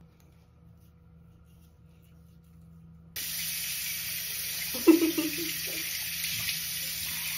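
Water running from a faucet into a sink: a steady rush that starts abruptly about three seconds in, after a near-quiet opening. A brief voice sound cuts in about five seconds in.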